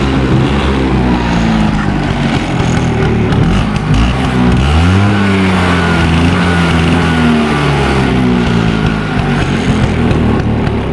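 Bajaj Chetak scooter's two-stroke single-cylinder engine running and being revved by hand: the pitch rises about four seconds in, holds for a few seconds, then falls back toward idle. The owner considers the engine healthy in its main parts but due for servicing.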